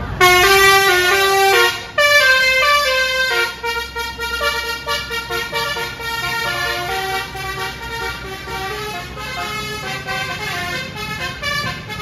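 Basuri telolet multi-tone musical horn on a Sahabat coach, playing a tune. A loud phrase of stepped notes lasts about a second and a half. A second phrase follows straight after, then more notes, quieter, keep playing to the end.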